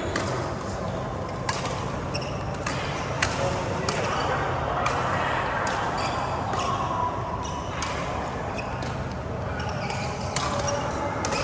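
Badminton rally: sharp racket strikes on the shuttlecock at irregular intervals of roughly a second, over background voices.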